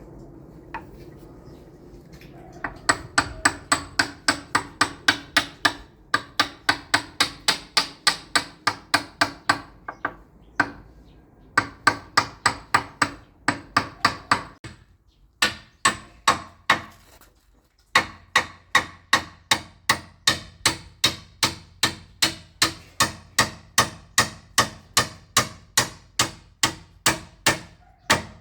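Hammer striking metal in steady runs of blows, about three a second, with brief pauses between runs.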